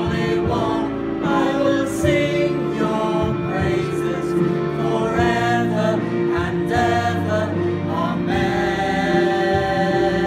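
Small mixed group of men and women singing a Christian worship song together, voices moving through the melody line by line.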